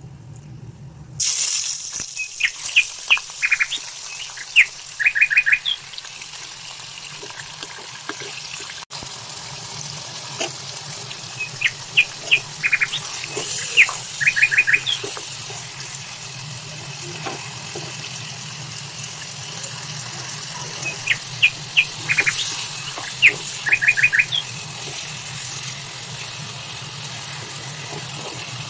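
Chicken pieces sizzling steadily in hot oil in a pan, the sizzle starting suddenly about a second in. Over it, a bird sings the same short chirpy phrase three times: a few quick rising chirps, then a fast run of four.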